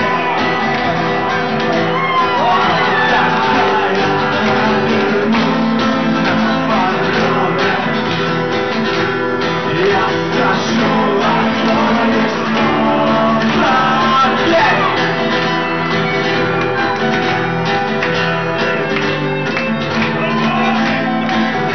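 Live acoustic band music: strummed acoustic guitar chords with a voice singing and shouting over them.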